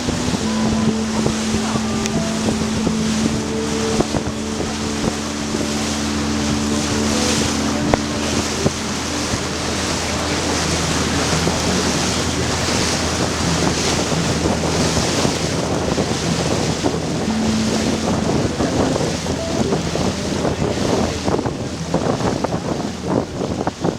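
Tour boat under way: a steady engine drone under water washing along the hull, with wind rushing across the microphone.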